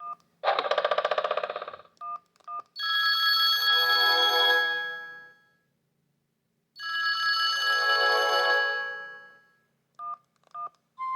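Sony Ericsson D750i mobile phone playing its preloaded ringtones through its loudspeaker: a short rapid ringing trill, then two bell-like chimes that each ring out and fade over about three seconds. Short two-tone beeps come between them, near the start, around two seconds in and near the end.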